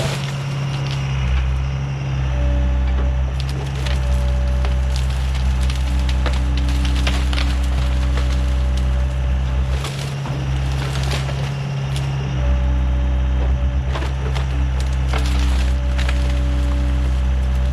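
Diesel excavator engine running steadily while branches and brush crack and snap sharply, many times over, as the machine crushes and piles them.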